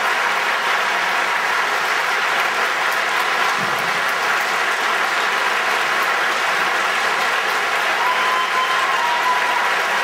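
A large theatre audience applauding steadily, a long unbroken round of clapping greeting a guest onto the stage.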